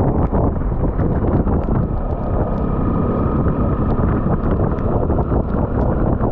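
Wind rushing over the camera microphone while riding a Honda CBR 250R single-cylinder motorcycle on a wet road, with the engine running underneath. A faint steady whine comes in about two seconds in and fades a few seconds later, and small ticks are scattered throughout.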